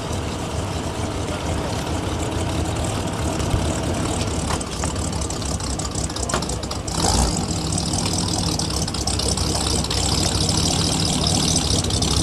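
Muscle car's V8 engine idling with a steady low rumble. About seven seconds in there is a short knock, after which it is a little louder.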